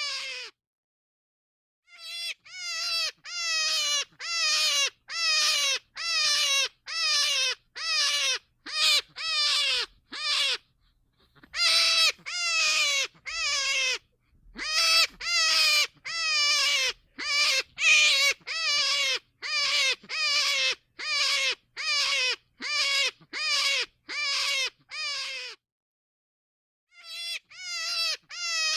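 An animal's short, high cries repeated about twice a second, each one falling in pitch, in three runs with brief pauses about ten seconds in and again near the end.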